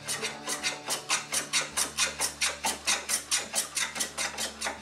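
A small hand-held block rubbed rapidly back and forth along the edge of a maple board, a rasping stroke about four or five times a second, abrading off dried furniture-factory glue.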